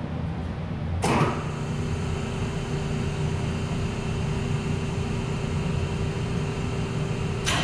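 A switch clicks about a second in as three-phase power is turned on, and a steady electric motor hum with a steady mid-pitched whine comes up over a low background hum. Another click comes near the end.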